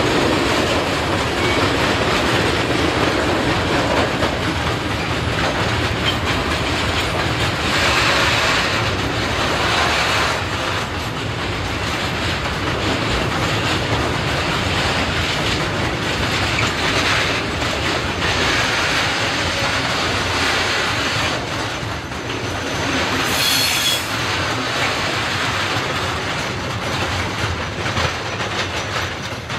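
Freight train of covered steel-coil wagons rolling past at close range, with steady wheel-on-rail noise and a brief high-pitched squeal about 24 seconds in. The sound eases slightly as the last wagon passes near the end.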